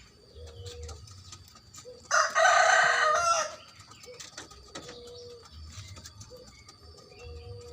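A rooster crows once, a single loud call of about a second and a half, starting about two seconds in. Faint short low calls sound now and then around it.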